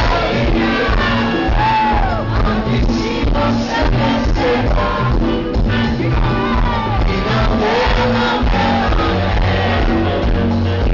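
Live band playing loudly, with singing and the crowd shouting and cheering over the music.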